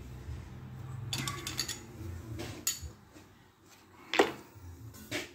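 Scattered metallic clinks and taps of a wrench and screwdriver working a valve-lash adjuster and its lock nut on the rocker gear of a Ferguson TEA engine. There is a quick cluster of clicks about a second in and a single louder clink about four seconds in.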